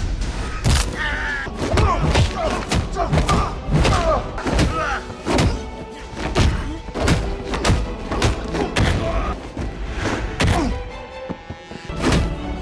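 Film fight-scene sound effects: a rapid run of punch and body-blow thuds from a hand-to-hand kung fu fight, over background music. The hits ease off briefly just before the end, then start again.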